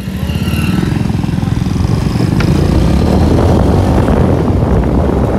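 Motorcycle engine running close by while riding at speed, along with road noise, growing louder over the first few seconds.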